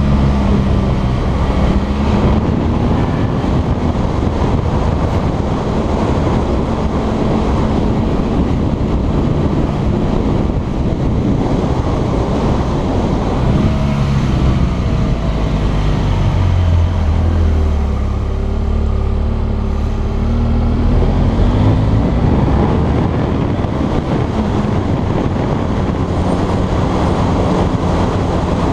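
Motorcycle engine running as the bike is ridden through mountain bends, its pitch rising and falling with the throttle, under a steady rush of wind noise.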